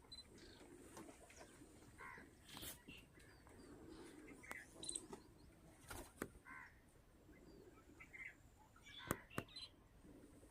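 Near-silent outdoor quiet with faint, short bird calls repeating every couple of seconds, and a few sharp clicks, the loudest about nine seconds in.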